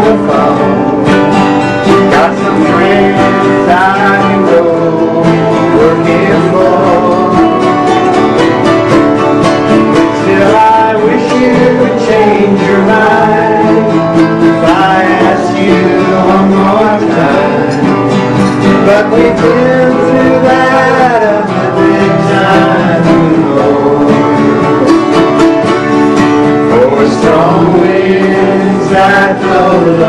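Live folk song: two acoustic guitars and a ukulele strummed together, with a man singing the melody over them.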